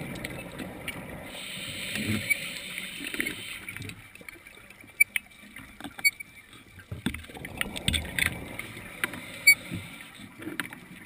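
Scuba diver's regulator breathing, heard underwater through a camera housing: a hiss of inhaled air for about two seconds near the start, then a rumble of exhaled bubbles about seven seconds in, with scattered sharp clicks.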